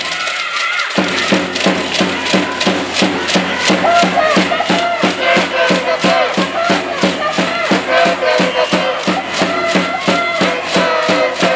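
Spectators' cheering section chanting and singing together in time with steady rhythmic beats or claps, about three to four a second, which start about a second in.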